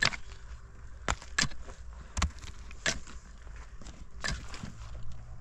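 Six sharp knocks or strikes at uneven intervals, the first one the loudest.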